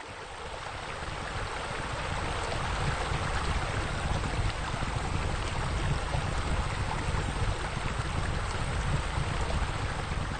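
Steady rush of running, splashing water, swelling up over the first couple of seconds and then holding even.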